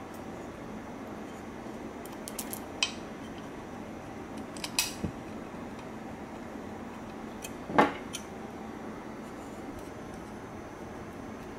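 Small hardware parts clicking and tapping against a carbon-fibre plate as they are fitted by hand: a few light clicks, a cluster a little later, and one louder sharp knock about eight seconds in, over a steady low hiss.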